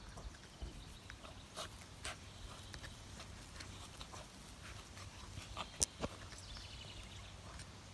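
Beagle mouthing and snuffling at its ball while rolling in the grass: irregular small clicks and rustles, with one sharper click about six seconds in.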